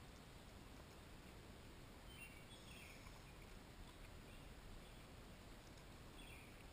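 Near silence: faint outdoor background hiss with a few faint bird chirps, about two and a half seconds in and again near the end.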